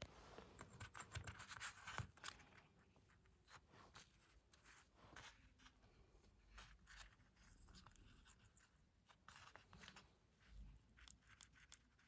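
Faint rustling and scraping of thin plastic membrane keypad strips being handled, flipped and slid on paper, with scattered light clicks.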